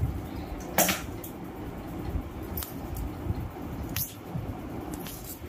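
Puppy gnawing and chewing a chew toy: soft squishing sounds with a handful of sharp clicks, the loudest about a second in.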